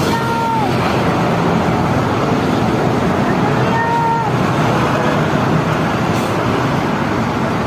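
Telolet basuri bus horn sounding brief melodic notes, twice: once right at the start and again about halfway through. Each note rises and then falls in pitch, over a steady din of engines and traffic.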